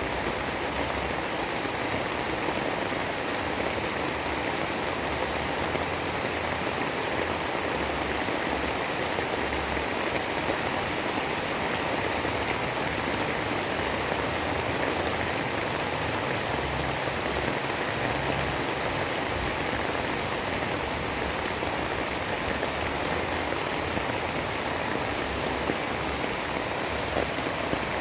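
Steady rainstorm ambience: an even, unbroken hiss of rain with no thunder claps or gusts standing out.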